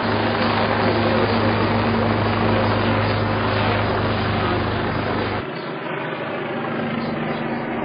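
Steady low mechanical drone with fast fine pulsing, cut off suddenly about five seconds in, leaving quieter street noise.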